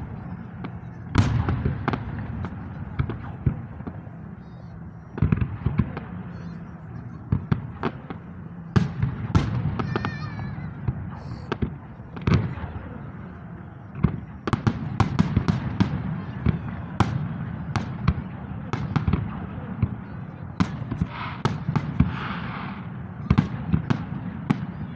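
Fireworks salute going off: a long irregular series of sharp bangs from bursting shells, sometimes several close together, over a steady background rumble.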